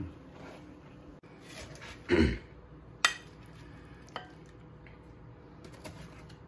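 Plastic spatula scraping crusted fish fillets off a wire air-fryer basket and onto a ceramic plate, with a sharp clink about three seconds in and lighter clicks after. A loud short sound comes about two seconds in.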